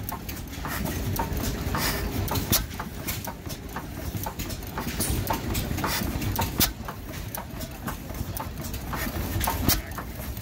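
Antique stationary gas engine running: a steady low rumble with a fast, irregular clatter of sharp clicks from its valve gear.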